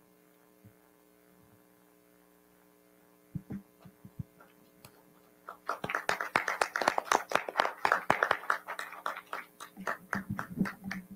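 Scattered clapping from a small audience, many sharp irregular claps for about five seconds from the middle on, over a steady electrical mains hum, with a few dull thumps shortly before.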